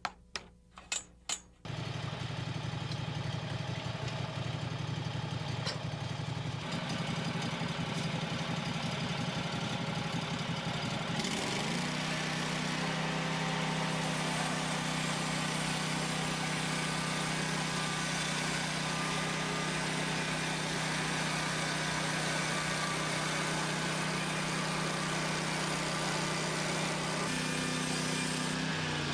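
A few sharp clicks, then the small engine of a portable bandsaw sawmill runs steadily. Its sound changes about 7 seconds in, and again about 11 seconds in, when its pitch steps up and holds.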